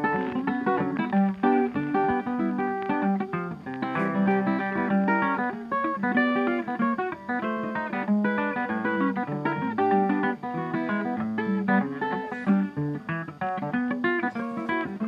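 Background music played on plucked guitar, many short notes in quick succession.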